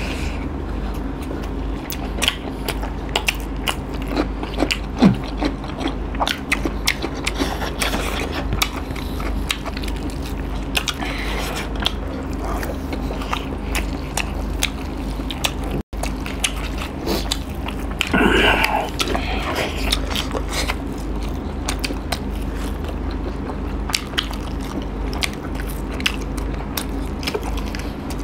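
Two people eating rice and chicken curry by hand: chewing and biting with many small wet clicks, over a steady low hum. A brief vocal sound comes about two-thirds of the way through.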